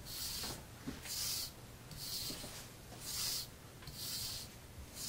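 Straight razor stroked lightly across a paddle strop treated with 0.5 micron diamond spray: faint, soft hissing swishes, about one stroke a second, each lasting under half a second.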